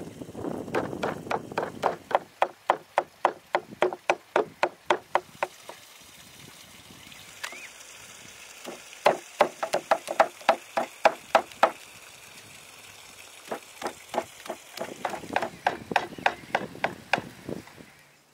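Heavy cleaver mincing raw meat on a wooden log chopping block: fast, even chops of about four a second, the blade striking through the meat into the wood. It comes in three runs with short pauses between them.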